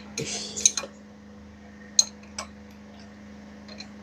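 Metal hand tools clinking: a few sharp clicks and a short scrape near the start, then single clinks about two seconds in, over a steady low hum.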